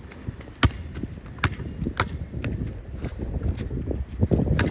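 A basketball bouncing in play: about six sharp bounces at uneven intervals, over low scuffling noise that grows near the end.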